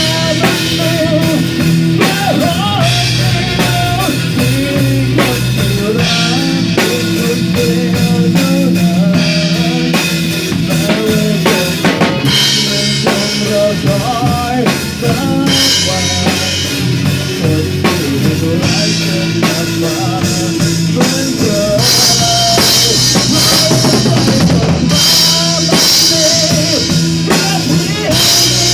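A band playing an instrumental passage with no singing: a drum kit keeps a steady beat of bass drum, snare and rimshots under bass notes and a melody line.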